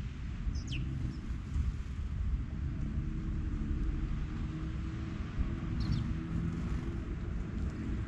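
Steady low rumble of distant traffic, with a faint engine hum under it. A small bird gives two short, falling chirps, one about a second in and one near six seconds.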